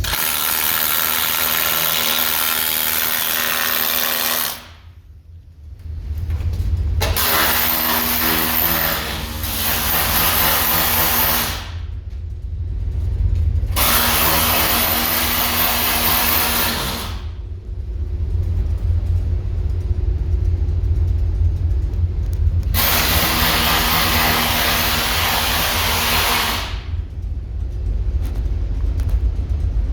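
Handheld power tool working rust out from around the rear window's rubber seal. It runs in several bursts of a few seconds, stopping and starting again, over a steady low rumble.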